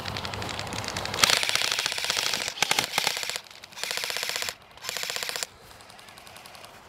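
Airsoft electric guns firing full-auto: a rapid rattle of shots. There is one long burst about a second in, then two shorter bursts.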